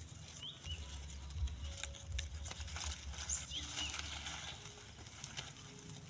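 Dry grass nest and palm fronds rustling and crackling as they are handled, over a low rumble that comes and goes. A few short chirps from a small bird sound through it, about half a second in and again around three to four seconds in.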